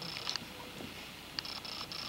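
Faint scuffling of two dogs wrestling on carpet, with several short high metallic clinks from a collar tag jangling as the small dog tugs at the Doberman's neck.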